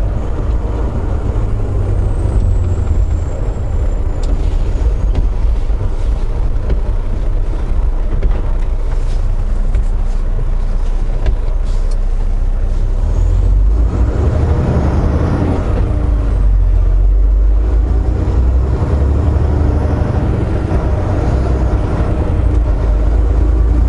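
Volvo VNL860 semi truck's diesel engine and road noise heard from inside the cab, a steady low rumble that grows louder and fuller a little past halfway through.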